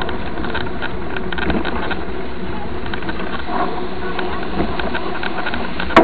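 Mountain bike riding over a rough dirt road, heard from a camera mounted on the bike: a steady rumble of wind and tyres with a constant fine rattle from the bike, and a sharp knock at the very end.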